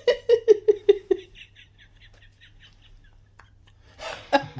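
A person laughing in quick, evenly spaced bursts that drop slightly in pitch, then fade into breathy, near-silent laughter; laughter and talk pick up again near the end.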